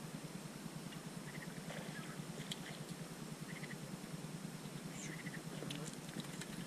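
Wind buffeting the microphone as a steady low rumble, with faint short chirps every couple of seconds and a few light ticks near the end.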